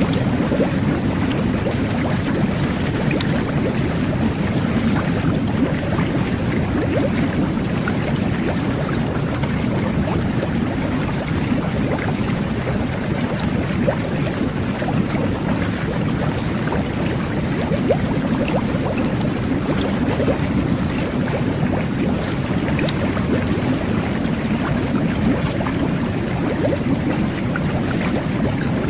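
Jet bath churning its water: a steady, low rush of bubbling with many small pops and splashes.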